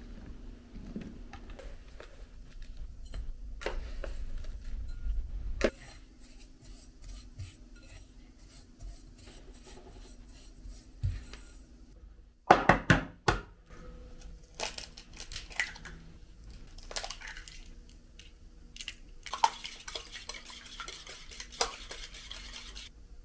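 Kitchen prep sounds: a knife cutting fresh strawberries, then a few sharp knocks about twelve seconds in as an egg is cracked on the rim of a stainless steel bowl. Utensils then clink and scrape in the metal and glass mixing bowls.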